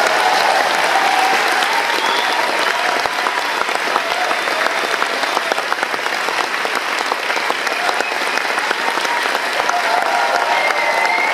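Concert audience applauding loudly, a dense steady clapping with some cheers and whistles mixed in.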